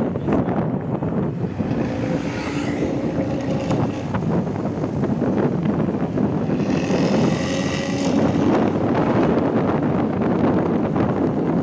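Bus engine and loud 'ngorok' (snoring) aftermarket exhaust running, with road and wind noise. Twice a higher-pitched sound joins it for a second or two.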